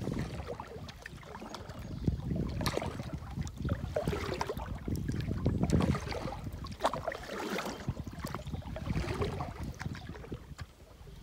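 Paddle strokes and water sloshing along the hull of an Old Town Pack canoe on calm water, swelling with each pull about every two seconds, with light splashes and drips between strokes.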